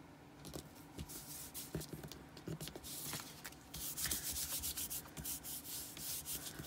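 A hand rubbing across the back of a paper card panel to press a glued layer flat: a soft, dry swishing with a few light taps, loudest in the middle.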